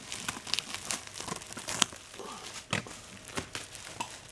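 Plastic bubble wrap crinkling and crackling as hands handle a wrapped parcel, in irregular bursts with a few sharper snaps.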